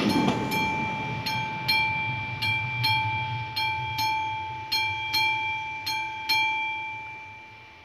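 AŽD 71 level-crossing warning bell (the classic striker bell) ringing at about two strikes a second, each strike ringing on. The strikes stop a little after six seconds in and the ring dies away. Beneath it the rumble of the departing diesel railcar fades.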